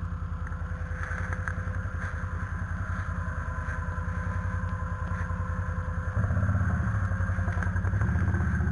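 ATV engine running at low revs with a steady firing rhythm, getting louder about six seconds in as it is given more throttle.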